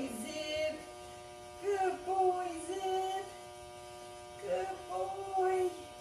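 Two drawn-out, wavering voice-like phrases, each a second or more long, over a steady electrical hum.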